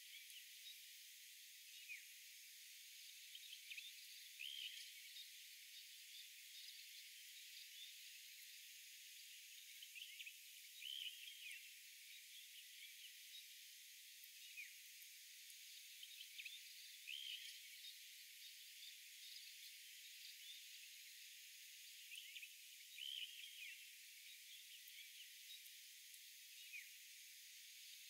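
Faint outdoor ambience: a steady high hiss with short high chirps recurring every second or two.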